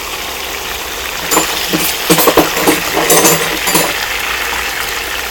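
Hot oil still sizzling in a wok, with a cluster of metal clinks and scrapes between about one and four seconds in as a spatula lifts the fried fish out.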